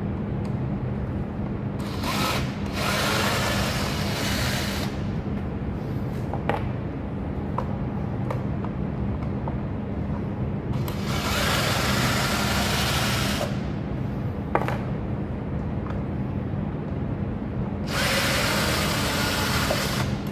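Cordless drill-driver spinning out the Phillips screws of a winch's plastic control box, in three runs of a few seconds each: about two seconds in, around eleven seconds in, and near the end. A steady low hum lies underneath, with a few small clicks between the runs.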